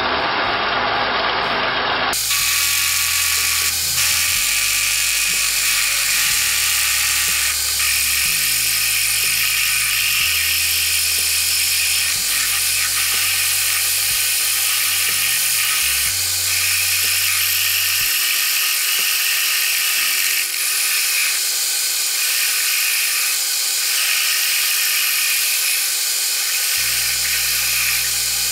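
Atlas metal lathe turning down mild steel hex stock with a cutting tool, played back sped up. The motor and cutting noise come out as a steady, high-pitched whir from about two seconds in.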